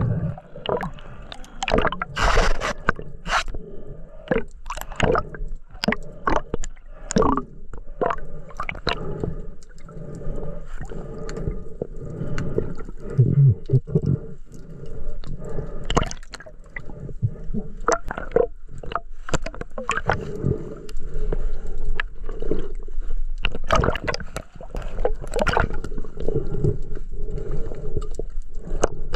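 Underwater water noise: gurgling and sloshing around the camera, broken by many irregular clicks and knocks.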